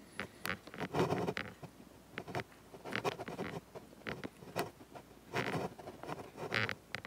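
Handling noise from a handheld phone carried about a small room: irregular taps, clicks and rustles.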